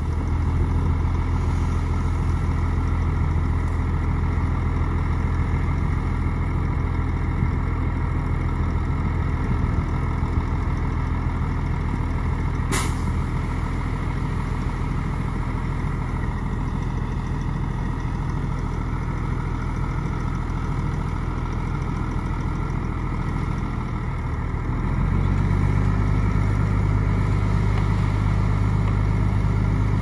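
Heavy diesel engine of earth-moving machinery running at a steady, low, even note, with one sharp click about halfway through. About 25 seconds in, the engine note shifts and grows slightly louder, as the machine takes on more throttle or load.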